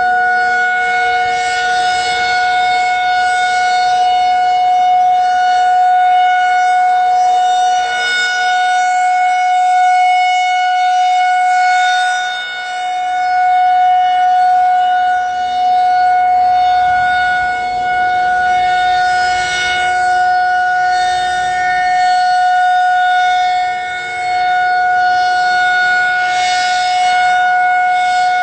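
Federal Signal 2001-SRN rotating electronic outdoor warning siren sounding a steady tone during a siren test. The pitch holds level while the loudness swells and dips briefly about every twelve seconds as the rotating speaker head sweeps past.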